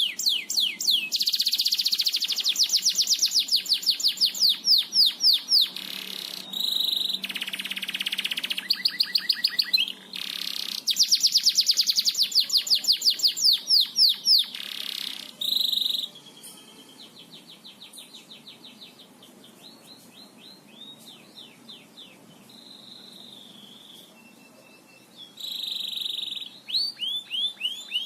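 Domestic canary in full song: long, rapid trills of quickly repeated notes, the drilling runs that Indonesian keepers call 'ngebor'. The song goes quieter for several seconds past the middle, then turns loud again near the end.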